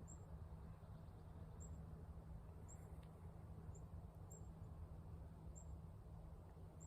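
Faint, short, high-pitched chip calls from a small bird, repeating about once a second, over a low steady background hum.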